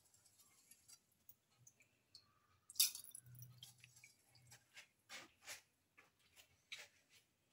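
Faint, scattered pops and clicks from the tomato-mint pilaf liquid heating toward the boil in the pan, with one sharper click about three seconds in.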